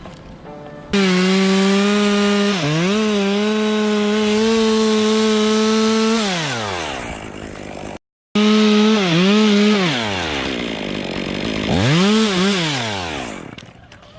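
Two-stroke chainsaw at full throttle cutting wood, its pitch dipping briefly a few times as it bogs under load and falling away as the throttle is released. It starts abruptly about a second in, cuts off suddenly near the middle, then resumes and winds down again near the end.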